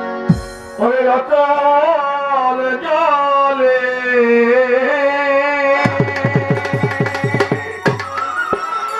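Violin playing a sliding melodic introduction over a held drone, after a brief knock just after the start. About six seconds in, tabla joins with a quick, steady beat.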